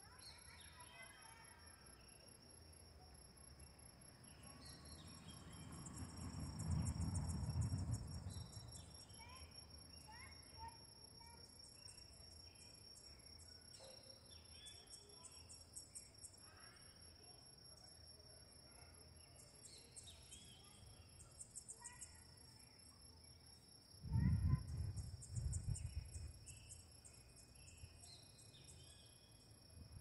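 Crickets trilling steadily in a high, continuous tone, with trains of rapid pulsed chirping coming and going, and scattered short bird calls throughout. Two low rumbles swell up, about six seconds in and again near the end.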